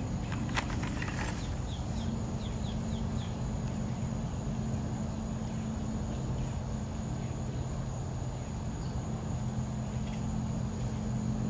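Steady high-pitched insect drone over a constant low mechanical hum, with a few short high bird chirps about two to three seconds in.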